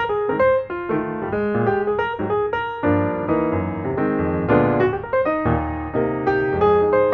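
Background piano music: a quick run of single notes, joined by fuller chords and lower bass notes from about three seconds in.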